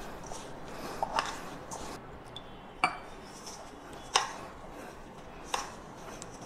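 Hands kneading and pressing crumbly whole-wheat dough in a stainless steel bowl: a soft rustling of the dough with about five sharp metallic clinks against the bowl.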